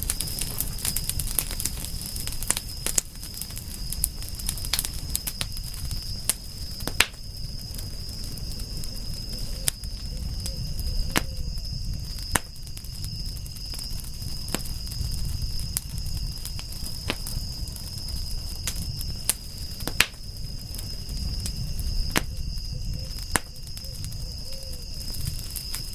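Wood fire crackling, with sharp pops at irregular intervals over a low rumble of the flames. A steady high-pitched tone sits behind it.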